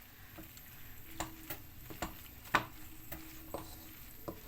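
A spoon stirring chicken and vegetables in a frying pan, knocking and scraping against the pan at irregular moments, over a faint sizzle.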